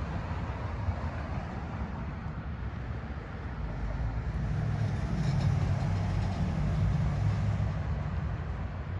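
Low steady rumble of a running vehicle, swelling louder from about four seconds in before easing off near the end.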